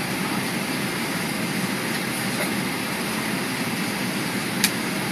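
Steady rushing noise inside the cabin of an Airbus A380 at low power on the runway after a rejected takeoff, with a single sharp click about four and a half seconds in.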